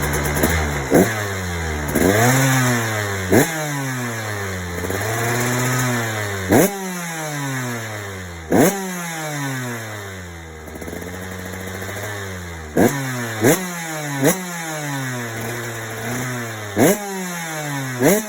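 KTM 85 big wheel's warmed-up two-stroke single-cylinder engine on its stock silencer, revved with about nine sharp throttle blips, each rising quickly and falling back to idle. Three blips come in quick succession a little past the middle.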